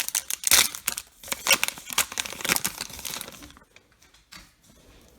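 Baseball card pack wrapper being torn open and crinkled, a dense crackle with a couple of louder rips in the first two seconds, then it stops about three and a half seconds in, followed by a single light tick.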